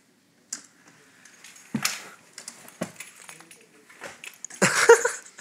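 Metal crutches clinking and knocking against the floor during a crutch-flip trick, with a few sharp knocks and a louder clatter near the end, mixed with a short vocal sound as the trick goes wrong and he loses his balance.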